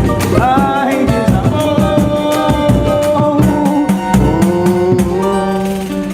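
Samba-pagode band playing live: a quick steady hand-percussion beat under sung and played melody lines. The music dies away near the end.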